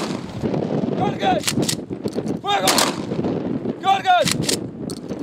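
Rifle salute volleys from a line of honour-guard riflemen: three ragged volleys about a second and a half apart, each two or three sharp cracks almost together.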